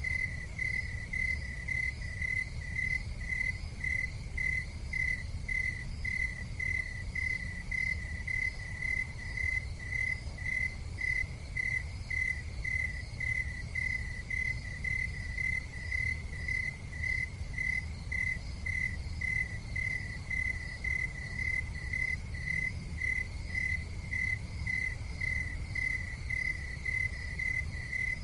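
Insects chirping in an even, unbroken pulse of high chirps, over a constant low rumble.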